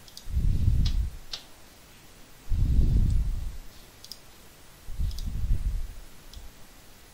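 A computer mouse clicking about five times. Between the clicks come low, dull puffs about every two and a half seconds, and these are the loudest sounds.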